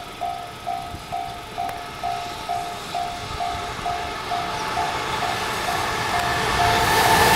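Railway level-crossing warning bell ringing in a steady series of dings, about two a second. Toward the end it is drowned out by the approaching EF210 electric locomotive and its container freight train, whose running noise grows steadily louder as it draws near.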